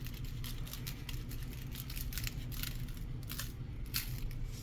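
Seasoning shaken from a shaker onto a raw pork loin: a run of irregular light ticks and rattles, over a low steady hum.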